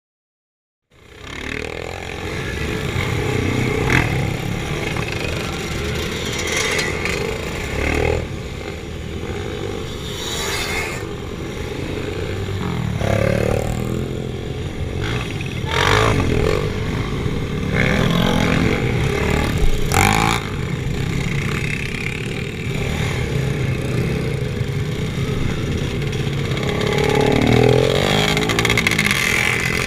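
Motorcycle engines running and revving, starting about a second in, with several rising and falling revs and scattered clatter.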